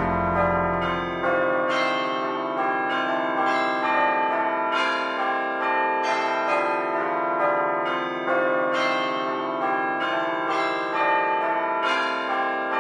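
Music played on bells: a steady stream of struck bell notes, each ringing on over the next.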